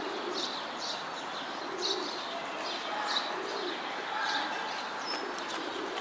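Feral rock pigeons cooing, low coos repeating about every second and a half, with small birds chirping high over a steady background hiss.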